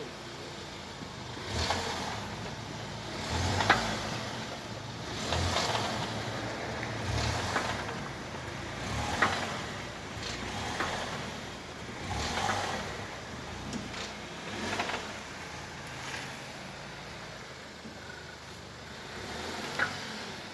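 Skoda Kodiaq's front end knocking as the car body is rocked by hand: a clunk with a rustle about every one and a half to two seconds, a few of them with a sharp click. It is an unexplained front knock that shows up under rocking.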